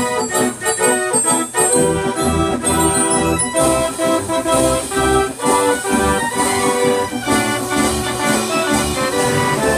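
Wurlitzer Style 165 band organ playing a tune from its perforated paper roll: a bright organ-pipe melody and chords over a steady, evenly spaced beat.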